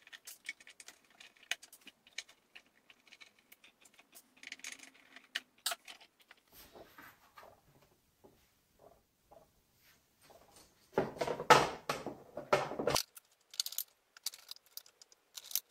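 Small metallic clicks and taps of screws and a screwdriver as the black front panel of an electrolyzer's base is unscrewed and lifted off. About eleven seconds in, a louder stretch of handling noise lasts about two seconds.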